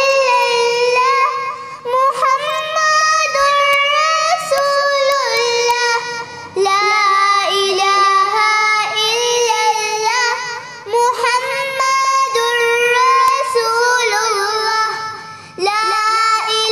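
A child singing an Arabic devotional nasheed, solo, with long held notes that bend and waver in pitch, broken by short pauses for breath.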